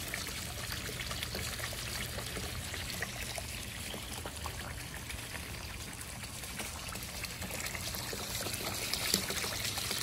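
Intex LED pool waterfall pouring a thin sheet of water into an above-ground pool: a steady splashing trickle.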